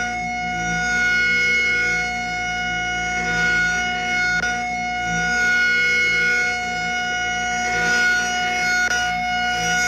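Outdoor tornado warning siren sounding a steady tone held at full pitch, its loudness swelling and easing every two to three seconds.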